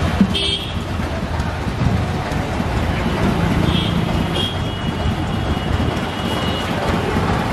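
Steady roadside traffic rumble with people talking in the background.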